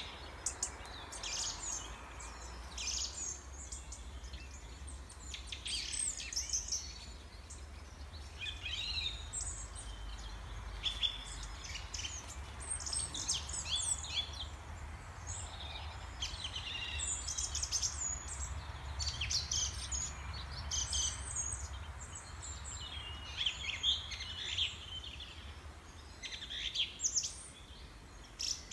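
Small songbirds chirping and singing, many short high calls and trills overlapping throughout, over a low steady rumble.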